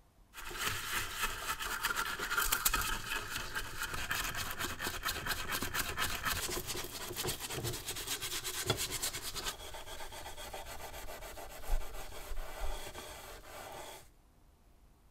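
Stiff brush scrubbing a round metal stove part in soapy water with rapid back-and-forth strokes. The scrubbing changes tone about two-thirds of the way through and stops shortly before the end.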